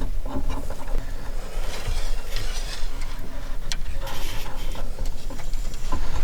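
A low rumble, like wind on the microphone, with a few scattered light clicks and rustles.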